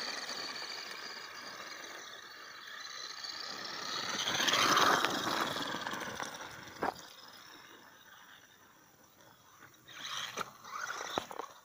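Electric RC buggy's motor whining as it drives over gravel, growing louder to a peak about five seconds in, then fading as the car moves off into the distance. A few sharp clicks near the end.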